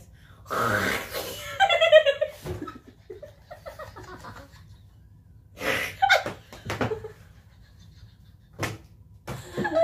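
Two women laughing in several separate bursts, the first one breathy and the loudest.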